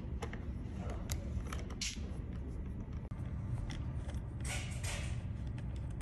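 Light clicks and short scraping rustles from handling plastic steering-wheel trim parts and a screwdriver, over a steady low hum.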